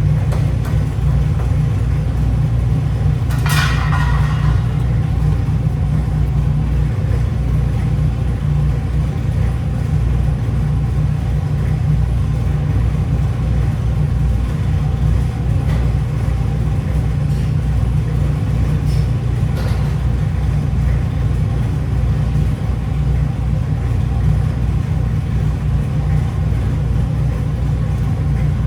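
A steady low rumble, with a brief clatter about three and a half seconds in and a couple of fainter ones later.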